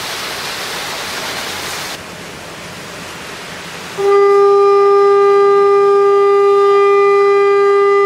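A ship's whistle sounds one long, steady blast, starting about halfway through and still going at the end, over a rush of wind and sea.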